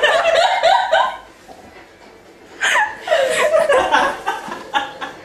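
A person laughing hard in two bouts: one lasting about a second at the start, the other starting a little before three seconds in and breaking into quick pulses.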